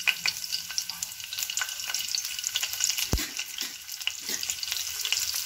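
Green chillies sizzling and crackling in hot mustard oil in a kadhai, with many small pops and spits. There is a single dull thump about three seconds in.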